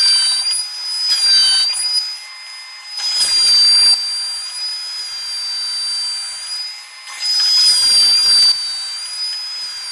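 Electric sander running with a steady high whine, the rasp of sanding on wood swelling and fading as it works the boards.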